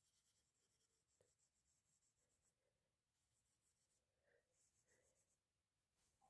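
Very faint scratchy rubbing in short spells: a pad of 000 steel wool worked over gold leaf on a gilded wooden frame, wearing back the new gilding so the repair blends in.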